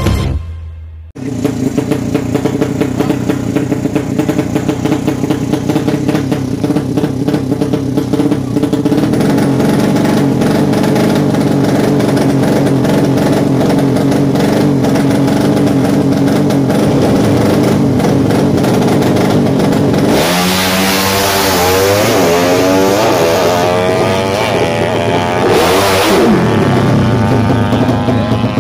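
The last of the intro music, then a 200 cc drag racing motorcycle's single-cylinder engine revving steadily on the start line. About twenty seconds in it launches, its pitch climbing in repeated rising sweeps as it shifts up. Near the end it passes close with a loud rush and a falling pitch.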